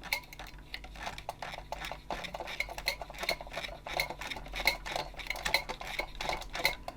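Fine sandpaper rubbed back and forth over a small metal battery-contact spring, scraping off rust: a quick series of short scratchy clicks, about three a second.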